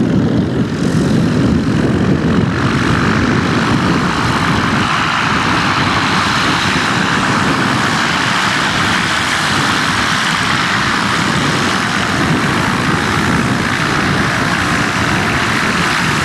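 Light propeller aircraft engine running steadily, the sound growing brighter about two and a half seconds in.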